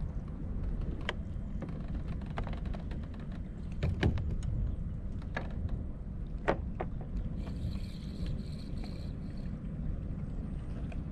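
Low rumble of wind on the microphone and water against a kayak hull, with scattered sharp clicks and knocks, the strongest about four and six and a half seconds in.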